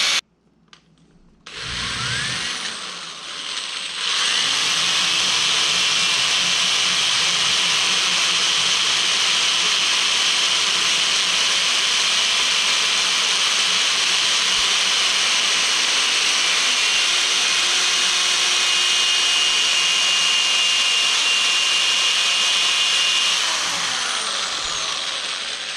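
Black & Decker corded drill spinning a mounted grinding stone against the metal intake opening, grinding the port out to a larger size: a steady high grinding whir. It stops briefly at the start, spins back up about a second and a half in, and winds down near the end.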